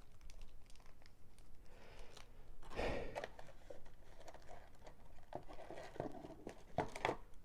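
Faint rustling and crinkling of foil Pokémon booster packs being handled, with scattered light clicks and a slightly louder rustle about three seconds in.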